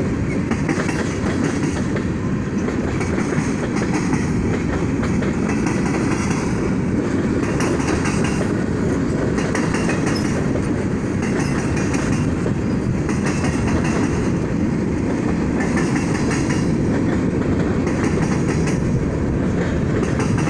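Freight train of tank cars, covered hoppers and boxcars passing: a steady rumble of steel wheels on the rails, with the clack of wheels over rail joints.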